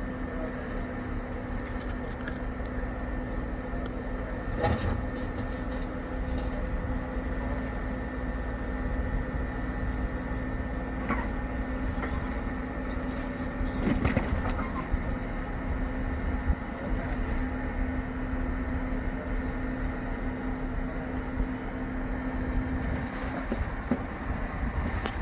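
2022 Jeep Wrangler 4xe Rubicon crawling over a rock obstacle, running with a steady hum under a low rumble, with a few sharp knocks about five seconds in and again about fourteen seconds in. The hum drops away near the end.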